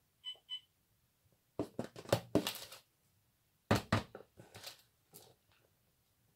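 Wooden spoon scraping and knocking against a plastic tub while scooping cooked rice, in two quick bursts of scrapes and taps, the first about a second and a half in and the second near four seconds.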